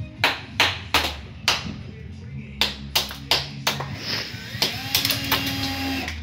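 A run of sharp plastic clicks and snaps, about two a second, as the moulded lugs are broken off a plastic kitchen-cabinet leg by hand, with music playing in the background.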